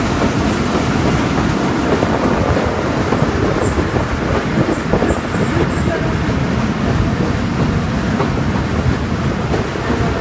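Passenger train running along the line, heard from an open coach doorway: a steady, loud rumble and rattle of the wheels on the rails.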